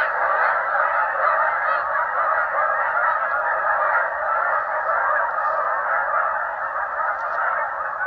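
A flock of geese honking, many calls overlapping into a dense, continuous chorus.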